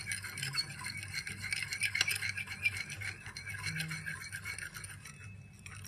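A spoon stirring shampoo and sugar quickly in a cut-glass dish, scraping and ticking rapidly against the glass. The stirring stops shortly before the end.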